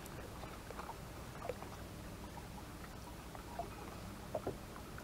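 Sea-Doo personal watercraft engine running quietly with a steady low hum, with a few faint short water sounds over it.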